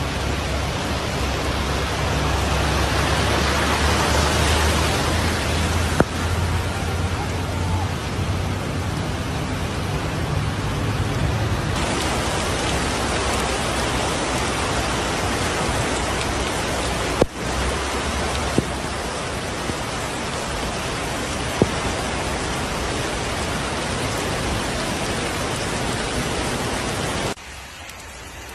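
Steady rush of heavy storm rain and wind, with wind rumbling on the microphone for the first dozen seconds. The sound changes abruptly a few times, as between shots, and drops sharply near the end.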